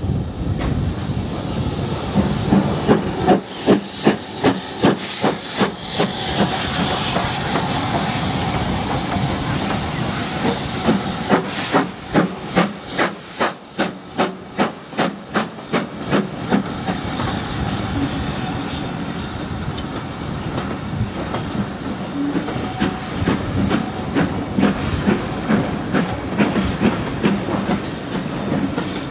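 Steam locomotive hauling a passenger train past at close range, its exhaust chuffing about twice a second, with steam hissing. Its coaches then run past with a steady rumble and regular wheel clicks.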